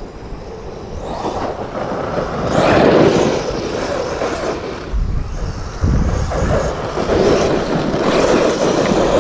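Arrma Outcast 8S EXB RC truck's brushless electric motor whining as it accelerates and eases off, with its tyres churning over sand and dirt.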